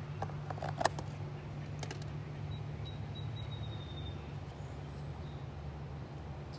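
Canoe paddling: a few sharp clicks and knocks of the paddle against the canoe in the first two seconds, over a steady low hum.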